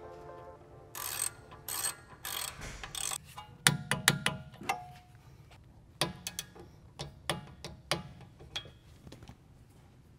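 Socket ratchet clicking in short runs as brake caliper slider bolts are run in and tightened.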